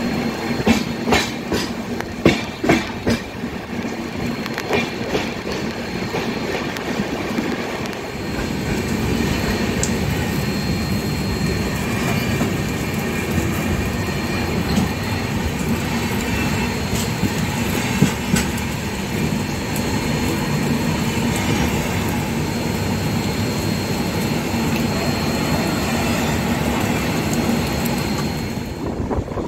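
Rajdhani Express coaches running at speed on the track: a quick run of clickety-clack over rail joints in the first three seconds, then a steady rolling rumble with an occasional click and a faint, steady, high-pitched whine.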